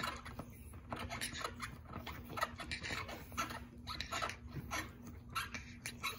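Six-week-old pug puppy gnawing on a plastic edge: irregular clicks and scrapes of small teeth on plastic, with a few sharper ticks.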